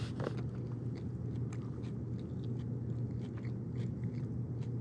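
Someone chewing a chicken taco close by, with small irregular clicks and crunches, over a steady low rumble.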